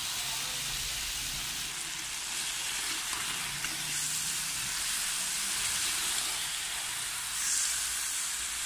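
Potato and aubergine sabzi sizzling steadily in hot oil in a pan while it is gently turned with a slotted spoon. This is the bhunai stage, where the vegetables are fried down in their own juices until the oil separates.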